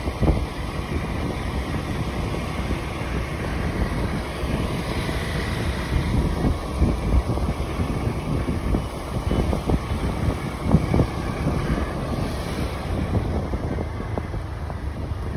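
Wind rushing and buffeting on a phone microphone while riding on a motor scooter, over the low rumble of the moving bike and road.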